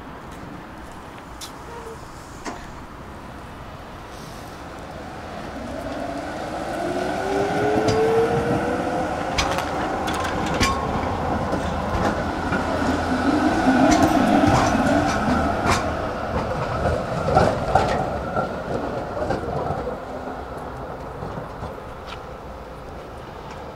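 An electric tram passing close by on steel rails, building up and then fading away. A rising whine comes in about five seconds in, and a few sharp clicks sound as it goes past.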